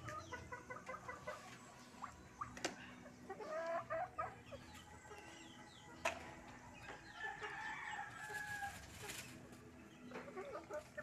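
Domestic poultry calling: a quick run of repeated clucking notes, then scattered chirps and clucks with a longer drawn-out call near the end. Two sharp cracks cut in, about two and a half seconds and six seconds in.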